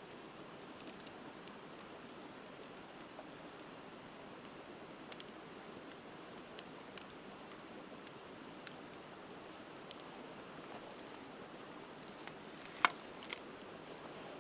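Wood fire crackling, with scattered sharp pops and one louder pop near the end, over the steady rush of river water.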